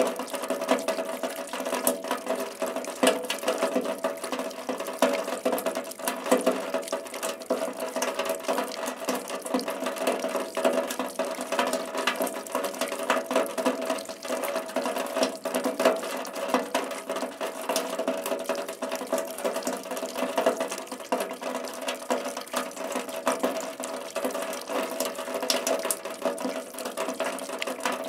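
Rain or water drops falling steadily, a dense unbroken patter of many small drop clicks, with a steady hum underneath.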